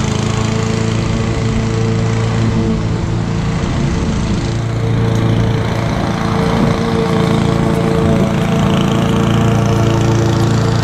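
Honda 216D self-propelled lawn mower's four-stroke engine running steadily while it cuts grass, its note shifting a little as the mower moves away and comes back.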